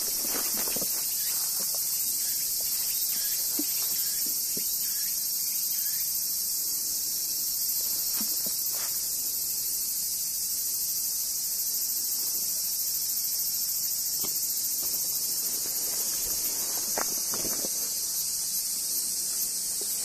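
A steady, high-pitched drone of insects in the summer woods, with soft footsteps on the path underneath that come closer together near the end.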